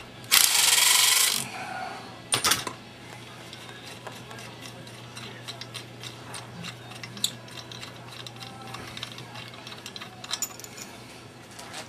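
Metal tools and engine parts being handled during crankcase disassembly. Near the start comes a loud scraping rush about a second long, then a couple of knocks, then scattered light metal clicks and taps over a steady low hum.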